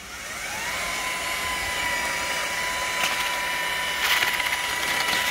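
Handheld electric paddle mixer winding up in the first second, then running at a steady whine as its paddle churns a batch of hot-mixed lime mortar (sand, stone dust and quicklime) in a metal dustbin. Gritty scraping of the mix against the bin grows harsher about three seconds in and again from about four seconds.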